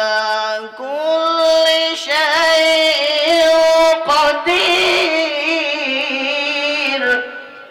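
A boy's voice reciting the Quran in the melodic tajweed style, drawing out long, ornamented notes with wavering pitch over several phrases; the last phrase fades out near the end.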